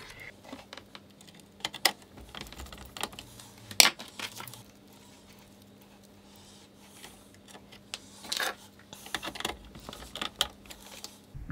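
Small clicks, taps and rattles of wire ends and a screwdriver being worked into the screw terminals of a metal-cased power supply, with one sharper click about four seconds in.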